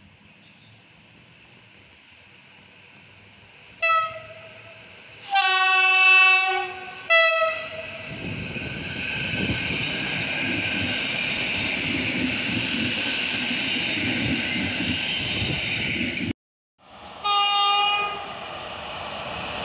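Train horn sounding as a regional electric multiple unit approaches: a short toot, a long two-tone blast, then another short toot. The unit then passes close by with a steady rumble and wheel noise, which cuts off suddenly. After the cut, an electric locomotive hauling intercity coaches sounds a short horn blast as it approaches.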